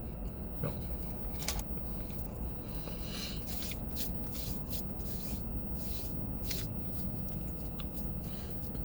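A series of short rubbing and scraping rustles, as of something being handled, over a steady low rumble.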